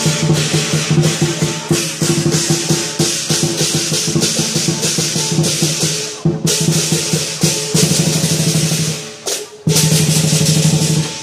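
Lion dance percussion: a large Chinese lion drum beaten in a fast, continuous rhythm with crashing cymbals. The playing drops away briefly about nine seconds in, then comes back at full strength.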